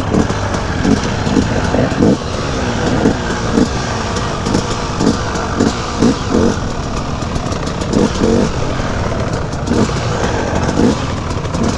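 KTM 250 EXC two-stroke dirt bike engine ridden at low speed, the throttle blipped again and again, each blip a short rising rev.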